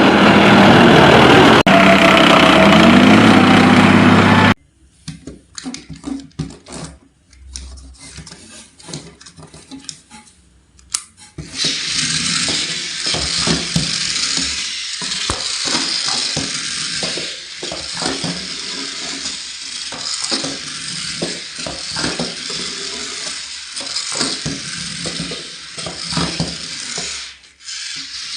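A loud vehicle-like sound with gliding pitch cuts off suddenly about four and a half seconds in. After it come irregular clicks, rattles and rustling of a plastic toy and its packaging being handled, over a steady hiss.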